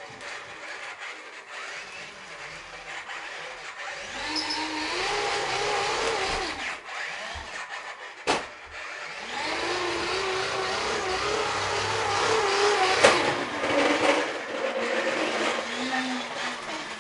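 Toy bulldozer's motor whirring in two long runs, its pitch rising and wavering as it drives, with a sharp click between the runs and a sharp knock during the second.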